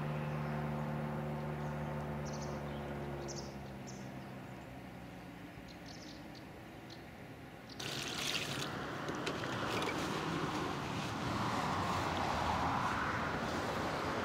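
A steady low hum fades out. Then, about eight seconds in, water suddenly pours out of a plastic bucket in a steady splashing gush onto a carp lying on the bank, keeping the fish wet.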